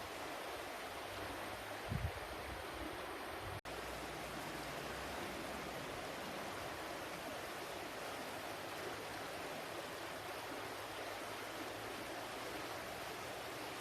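Steady rushing of flowing water. About two seconds in there is a short, low thump, and a moment later the sound drops out for an instant before the water resumes unchanged.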